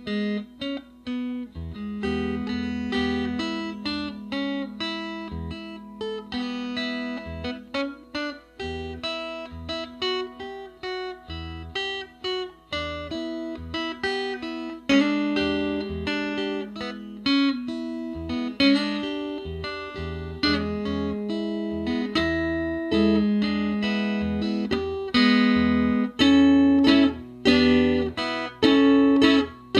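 Six-string Smokestack box guitar being fingerpicked: a continuous run of single notes and chords that ring and decay, with louder, sharper picked accents in the last few seconds.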